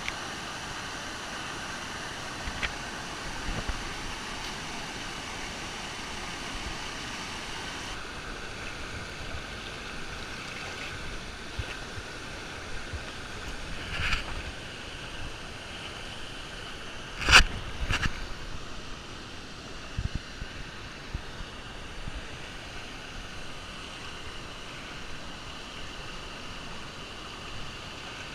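Waterfall and creek water rushing steadily. Two sharp knocks, close together about two-thirds of the way through, are the loudest sounds.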